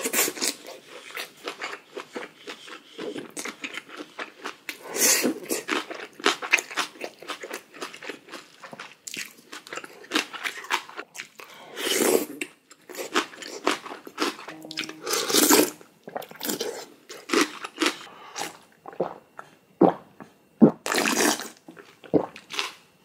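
Close-miked eating sounds: a person chewing and crunching cold noodles and side food, with a few louder, brief mouth noises along the way.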